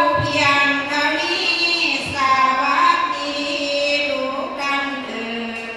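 Women chanting sarabhanya, a Thai Buddhist devotional verse sung in long held notes that slide between pitches. The chant fades away near the end.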